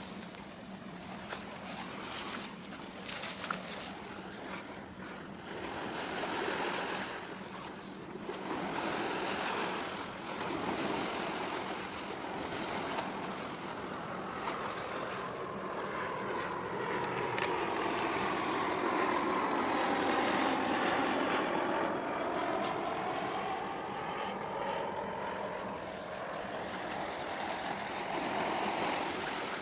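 Engine noise of vessels moving through the harbour entrance, heard across the water as a rushing drone that swells to its loudest past the middle and then eases off. Wind buffets the microphone in the first few seconds.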